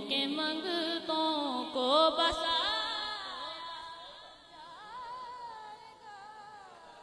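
A man singing a naat unaccompanied, a long, ornamented melodic line that bends up and down in pitch. It is loudest in the first few seconds and then trails off, growing fainter through the second half.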